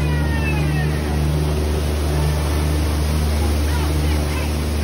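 Tour boat's motor running with a steady low hum, over rushing water; near the end a waterfall pours and splashes right beside the boat.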